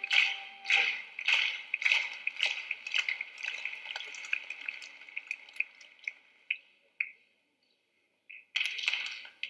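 Hand clapping in unison, just under two claps a second, that breaks up into scattered claps and dies away; a short burst of noise comes near the end.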